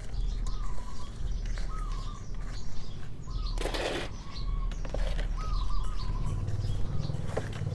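A bird calling over and over in short curling phrases, about one a second, over a steady low hum. About halfway through, a loud rustling scrape as a plastic pot is pushed into a tub of potting mix of soil, cow manure and tamarind bark, with softer scrapes and clicks of the pot later.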